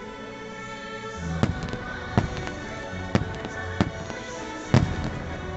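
Fireworks shells bursting in about five sharp bangs spread over a few seconds, the loudest near the end, over show music with steady sustained tones.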